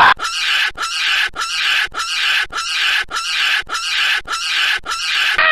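Baboon calling in a rapid series of short, raspy calls, about two to three a second.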